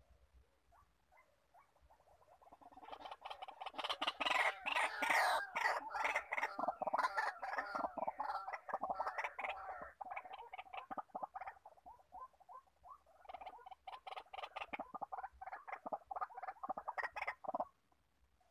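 White-breasted waterhen calling: a long run of fast, harsh repeated notes that starts about three seconds in, thins out around the middle, picks up again and stops suddenly near the end.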